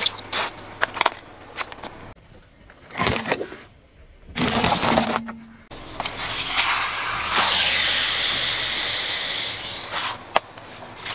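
Plastic objects crushed under a slowly rolling car tyre on asphalt: a run of sharp cracks and pops, a few short crunching bursts, then several seconds of loud rushing, spraying noise. A single sharp crack comes near the end.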